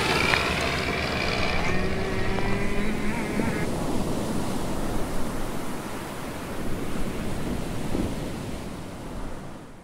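Sound effects of a motorboat engine passing, its pitch gliding as it fades out about three and a half seconds in, over steady ocean-wave noise that fades out near the end.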